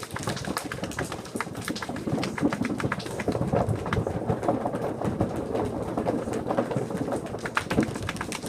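A class of children imitating a rainforest with hands and voices: a dense, uneven patter of taps and clicks like rain, with cooing bird-call imitations mixed in.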